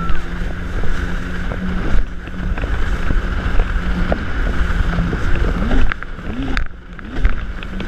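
Jet ski running at speed: a steady engine drone under heavy wind buffeting on the microphone and rushing water, with scattered knocks as the hull hits the chop. The sound drops briefly about two-thirds of the way through.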